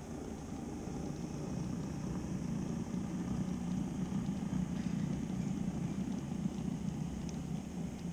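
N-scale model freight train, a Minitrix V 160 diesel locomotive hauling wagons, running past on the track with a steady low rumble that grows louder over the first few seconds and stays up as the wagons go by.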